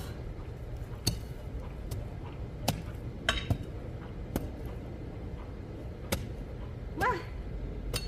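The metal blade of a long-handled garden hoe chopping into hard, stony soil: sharp, clanking strikes at an uneven pace of about one a second, with a short pause midway.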